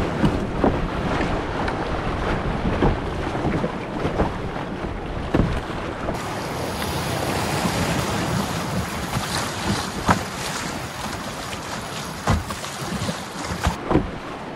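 White water of the Symonds Yat Rapids on the River Wye rushing around an open canoe as it runs the rapid, a steady loud roar with occasional short knocks and splashes.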